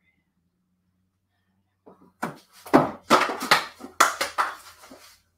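Craft paint bottles clattering and knocking against each other as someone rummages through them for colours. It is a dense run of clicks and knocks that starts about two seconds in and stops just before the end.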